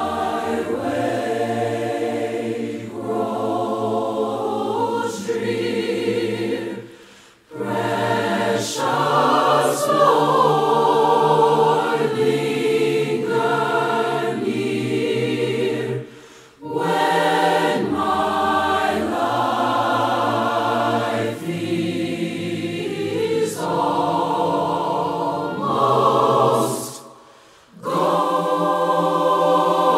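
Youth choir singing a slow gospel hymn in long held chords, breaking off briefly between phrases three times.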